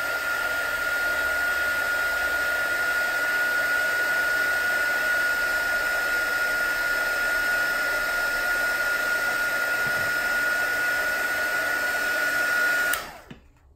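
WOW! embossing heat tool blowing hot air to dry wet watercolour paint: a steady fan rush with a high, even whine. It switches off near the end.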